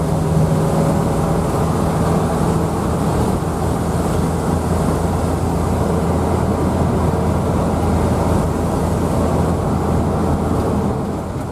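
Steady engine and road noise of a moving bus, heard from inside the cabin: an even low hum with no gear changes or revving.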